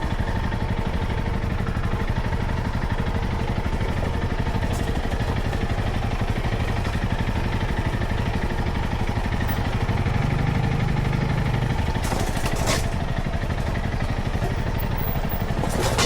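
Vehicle engine running steadily with a rapid even pulse; its note rises a little about ten seconds in, and there is a brief rattle around twelve seconds.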